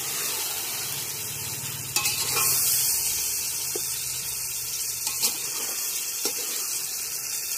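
Onions and tomatoes sizzling in oil in a large aluminium pot while being stirred with a perforated metal spatula, with a few clicks and scrapes of the spatula against the pot.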